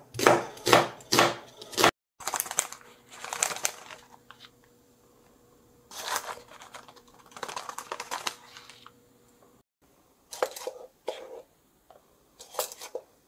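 A chef's knife slicing a new onion on a cutting board, about five quick chops in the first two seconds. Then a plastic ingredient bag crinkles. Near the end come a few short taps as a measuring spoon adds powder to a glass bowl.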